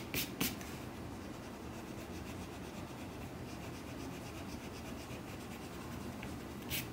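Pencil eraser rubbing on paper, erasing pencil marks around a marker outline. A few short, sharper strokes come just after the start and again near the end, with steady faint rubbing between.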